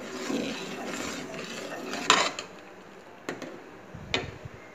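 Metal ladle stirring and scraping around a metal pot of milk, then three sharp metal-on-metal clinks, about two, three and four seconds in.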